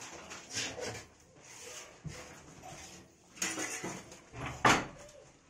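Dog whining softly amid scuffling movement, with one sharp, loud knock about three-quarters of the way through.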